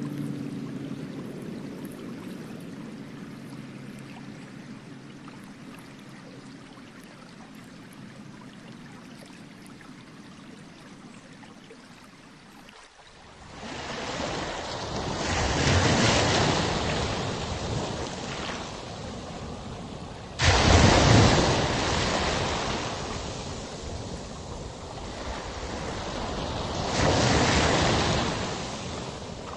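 A loud rushing noise that swells and falls back in three surges from about halfway through, the second one jumping in suddenly. Before it, a faint low hum fades away.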